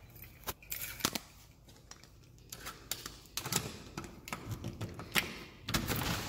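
A series of sharp clicks and rattles, sparse at first and denser from about halfway, from unlocking and opening a door fitted with a keypad deadbolt and knob.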